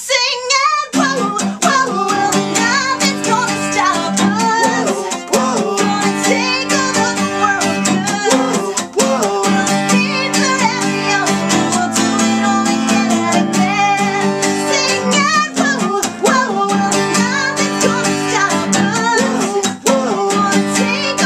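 A woman singing with her own strummed acoustic guitar. Her voice starts alone, and the guitar comes in about a second in with fast, steady strumming under the singing.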